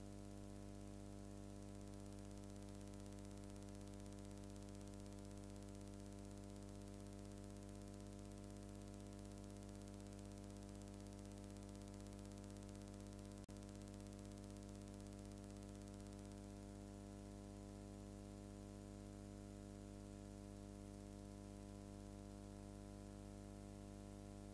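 Near silence: a steady low electrical hum with faint hiss, broken once by a faint click about halfway through.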